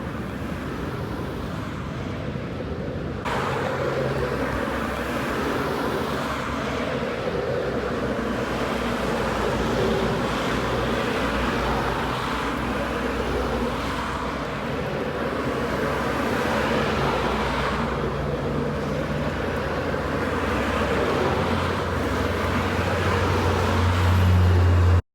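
Road traffic: a steady wash of vehicle noise with an engine's low hum, which gets louder near the end.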